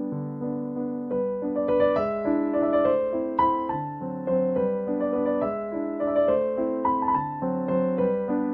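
Background piano music: a gentle keyboard tune of melody notes over held chords at an even pace.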